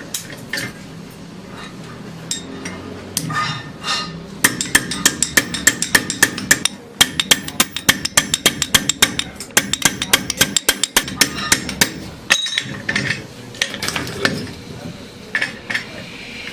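A hammer striking sheet metal in a fast, even run of blows, several a second, with scattered lighter metallic knocks before and after.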